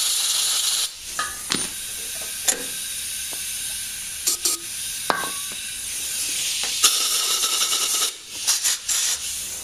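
Compressed air from a pistol-grip blow gun and carburetor-cleaner spray hissing into a Tecumseh snowblower carburetor to clear its jets. There are two louder bursts, one at the start lasting under a second and one about two-thirds of the way through, with a softer hiss and a few small clicks between them.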